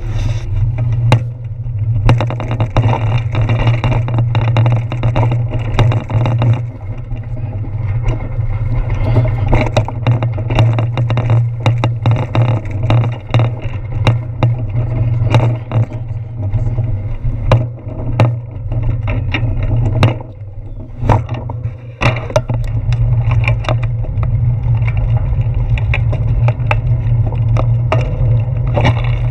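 Bicycle riding noise picked up through a handlebar-mounted action camera: a steady low rumble with frequent small knocks and rattles from the bars and camera mount over the road surface, easing briefly about twenty seconds in.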